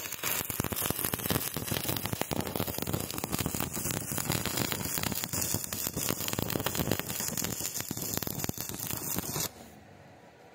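Stick-welding arc from a 2.6 mm E6013 electrode at 85 amps DCEP, crackling steadily while a bead is run. It starts abruptly and cuts off suddenly about nine and a half seconds in, when the arc is broken.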